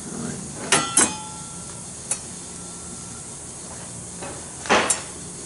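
A metal pizza peel clanking as it is picked up and handled. Two sharp clanks about a second in leave a brief metallic ring, a light tick follows, and a scraping clatter comes near the end, all over the steady hiss of the pizza oven's gas burner.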